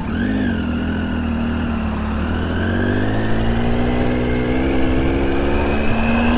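Adventure motorcycle engine under way. Its note rises and falls briefly near the start, then climbs slowly and steadily as the bike gathers speed.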